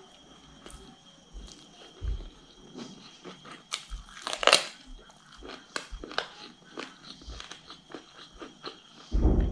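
Close-miked chewing of a mouthful of rice and boiled chicken, with irregular sharp crunches; the loudest is about four and a half seconds in, and another loud crunch comes near the end.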